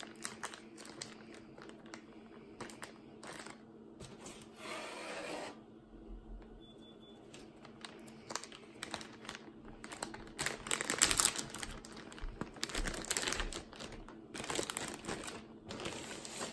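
Cardboard box and plastic packaging of a toy airport playset being handled and opened: rustling with many small clicks and several louder bursts, the loudest about eleven seconds in.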